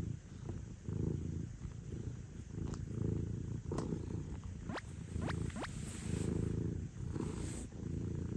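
British shorthair cat purring close up, the purr swelling and fading about once a second with its breathing.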